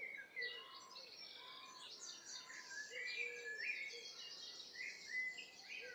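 Several small birds singing and chirping at once, faint: quick overlapping chirps and short trills, with a few lower whistled notes.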